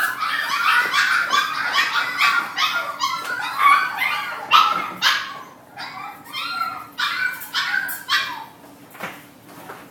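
Puppies yipping and barking in a rapid, overlapping chorus of high-pitched calls, several a second, thinning out over the last few seconds.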